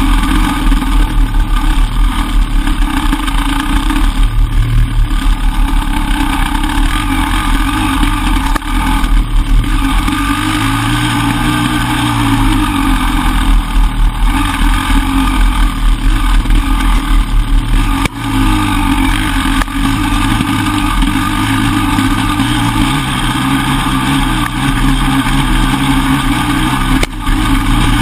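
Enduro dirt bike engine running on a trail ride, the revs rising and falling with the throttle, with a short drop in loudness about eighteen seconds in.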